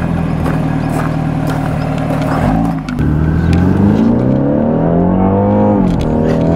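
BMW 4 Series engine running steadily, then revved. The pitch climbs for about three seconds, falls back about six seconds in and climbs again.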